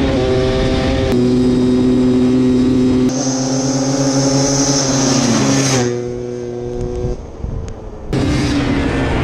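Two-stroke single-cylinder ATV engines running hard at high revs in a drag race. The note holds steady with abrupt jumps in pitch at several points, and goes quieter for a couple of seconds past the middle.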